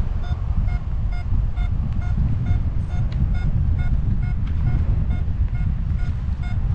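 Wind buffeting the microphone in flight, with a paragliding variometer sounding a string of short, evenly spaced beeps, the climb tone that signals rising air.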